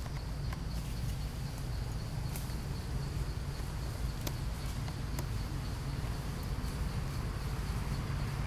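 Forest insects buzzing steadily in one high tone, over a steady low rumble, with a few faint sharp clicks.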